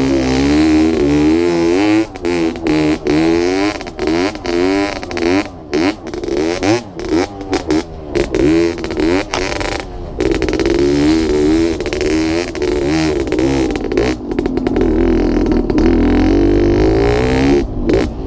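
Yamaha RS100 single-cylinder two-stroke engine revving up and down over and over as the throttle is worked on a rough dirt trail, with short throttle cuts in the middle stretch and a steadier pull for the last few seconds.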